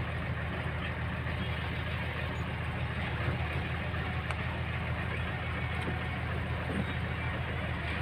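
Shaktimaan truck's diesel engine running steadily at idle, with no revving.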